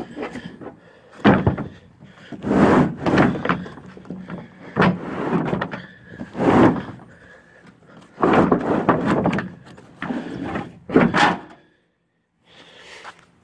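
Heavy Dee Zee rubber bed mat being hauled and dropped into a pickup bed: a series of irregular scrapes and thumps as it slides and slaps against the bed floor, falling quiet shortly before the end.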